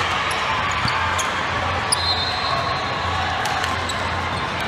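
Basketball being dribbled on a hardwood court during a game, with short sharp ticks and brief high squeaks scattered through, over steady crowd noise in a large hall.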